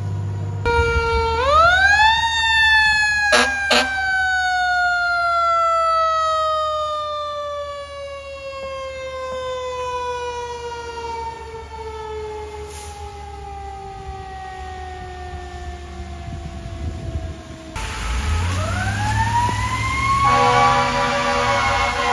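Fire engine's mechanical siren winding up to a high wail, then coasting slowly down in pitch for about fifteen seconds over the truck's engine rumble, with two short sharp bursts early in the wail. Near the end another siren winds up again, joined by steady horn-like tones over a hiss of wet road.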